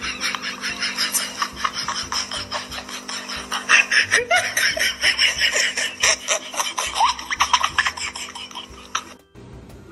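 A person laughing in rapid, breathy wheezes and snickers, with a few short squeaky rises in pitch; it cuts off suddenly near the end.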